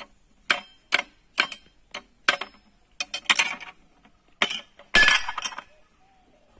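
Kulukki sharbat being shaken in a drinking glass capped with an upturned steel tumbler: a run of irregular sharp clinks and knocks of glass against steel, ending in a louder, longer clatter about five seconds in.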